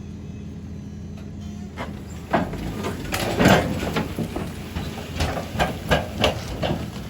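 A low steady hum, then from about two seconds in a run of irregular heavy knocks and clunks: logs being unloaded and thumping against each other and the trailer.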